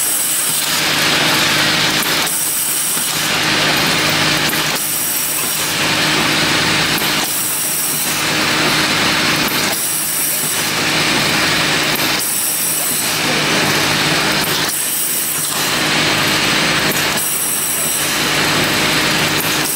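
Packaging machinery running: a rushing mechanical noise that swells and dips in a regular cycle about every two and a half seconds, over a steady hum.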